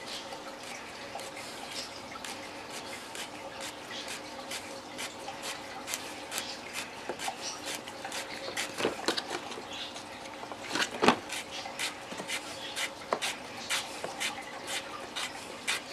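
A pointed hand tool twisted into the plastic wall of a tackle box to bore a hole, making irregular small clicks and scraping crackles. The clicks come thicker in the second half, with the loudest snap about eleven seconds in.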